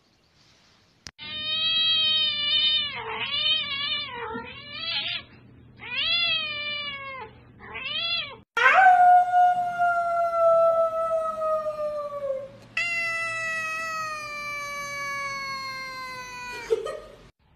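Cats meowing: a run of short meows that bend up and down, then two long drawn-out meows that slowly fall in pitch.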